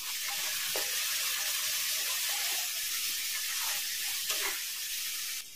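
Chopped tomatoes and onion masala with turmeric sizzling in hot oil in a kadai as a spatula stirs the pan. The sizzle cuts off suddenly near the end.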